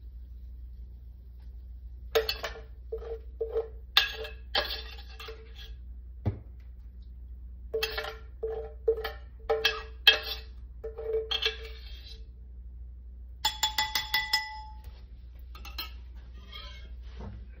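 Stainless steel skillet of corned beef hash being scraped out with a utensil: a series of short scrapes, each with a ringing pitch from the pan. Near the end comes a quick run of taps on the pan that leaves it ringing with a steady tone.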